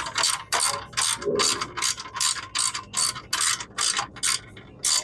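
Ratchet wrench clicking in quick, even strokes, about three a second, as a bolt is turned.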